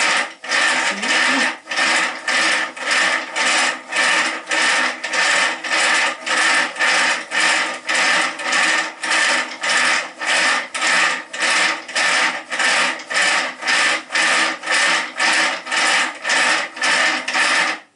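Hand-worked cord-twisting rig turning steadily, a rasping, whirring stroke about twice a second, as sewing thread is twisted into a fine cord under a hanging weight.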